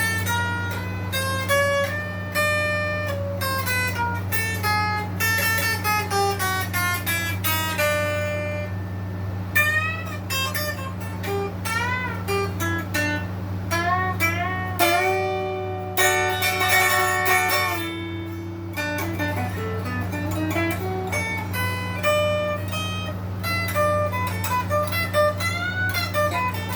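Epiphone Les Paul Junior electric guitar with its single bridge humbucker, played through an amplifier: picked single-note runs and arpeggios rising and falling, with one note held for a few seconds around the middle. A steady low hum sits under the playing.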